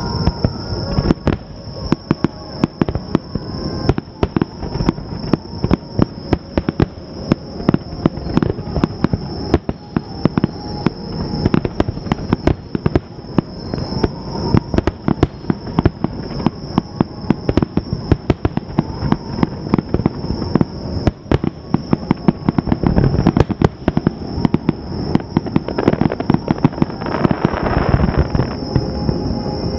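Fireworks finale barrage: a dense, rapid string of shell bursts, bang after bang over a continuous low rumble. Near the end the bursts thicken into a stretch of crackling.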